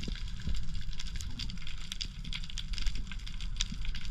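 Underwater reef crackle: dense, irregular clicking of snapping shrimp, over a steady low rumble of water moving past the camera housing.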